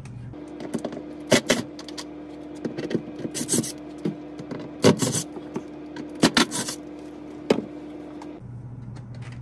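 Cordless drill-driver backing out the screws of a plastic ceiling vent-fan shroud: a string of short sharp bursts and clicks, mostly in pairs, over a steady hum.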